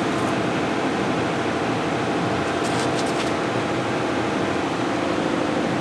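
Steady noise of a running fan, with a few faint short hisses about halfway through.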